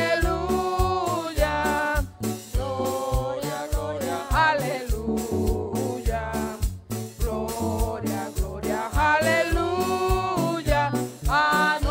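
Worship song: a woman leading, with another woman and a man, sings into microphones over instrumental accompaniment with bass and a steady beat.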